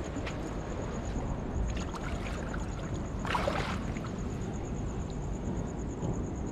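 Shallow seawater sloshing among rocks as a wet cast net is hauled out through it, with a brief splash a little over three seconds in.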